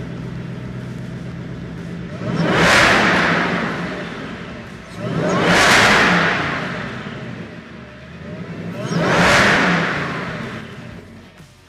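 Whipple-supercharged 5.0-litre V8 of a 2024 Mustang GT idling steadily, then revved three times, each rev rising quickly and falling back over about two seconds. This is the engine's first run on its new supercharger and calibration.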